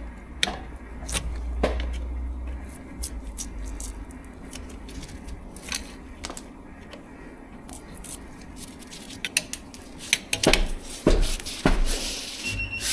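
Scattered metallic clicks, scrapes and knocks as old stick-on balancing weights are pried off an alloy wheel, over a faint steady hum, with a few heavier knocks a couple of seconds before the end. A short electronic beep sounds at the very end.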